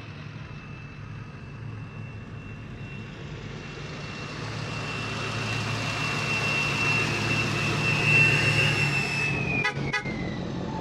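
Lifted pickup truck driving slowly past: low engine rumble with a steady high-pitched whistle. Both grow louder as it approaches, and the whistle drops in pitch as the truck passes near the end, with two brief clicks.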